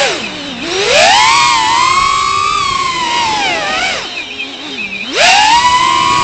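Brushless motors and propellers of a 3.5-inch FPV quadcopter whining. The pitch swings with the throttle: it dives low about half a second in and again near 5 s, then climbs back up to a high whine.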